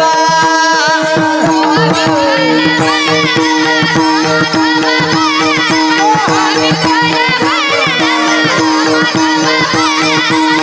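Varkari kirtan devotional music: an ornamented sung melody over a steady held drone, with a continuous run of pakhawaj drum strokes.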